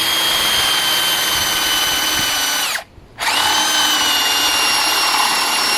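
Power drill driving a spade bit into a door for a deadbolt's bolt hole: a steady high whine that stops briefly about three seconds in, then runs again.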